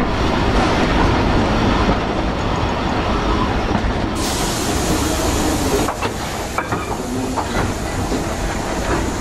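Heritage train running on the rails, heard from aboard, with a rumble and clatter of wheels as it slows along a station platform. A hiss comes in suddenly about four seconds in and stays, with a few clicks in the second half.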